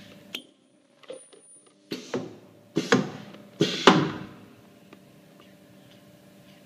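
Ultrasonic plastic tube-sealing machine working: a thin high whine for a second or so, then a run of clunks and short noisy bursts about a second apart, over a steady machine hum.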